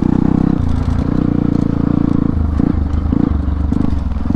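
Motorcycle engine of a rally-modified Hero Impulse, running loud through an open silencer while being ridden off-road. The throttle is opened and closed every second or so, so the revs rise and drop repeatedly.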